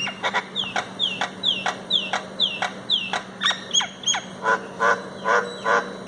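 Myna calling: a quick run of short, downward-swooping whistled notes, about two or three a second, followed near the end by a few harsher, rattling notes.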